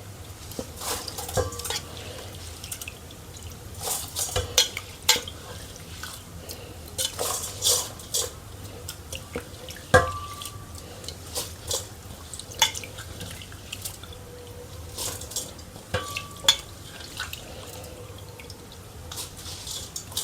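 Washed rice being put into an electric rice cooker's pot: irregular clinks, knocks and scrapes of utensil against the pot with wet, watery spatters.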